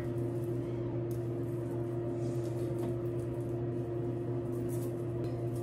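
Steady low hum of a small motor, holding one constant tone without change, with faint soft rustles over it.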